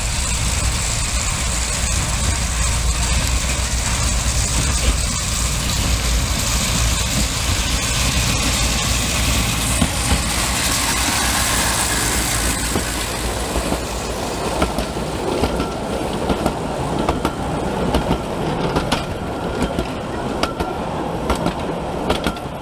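Narrow-gauge miniature park train running along its track: a steady rumble, with clicks and clatter of the wheels on the rails growing more frequent in the second half.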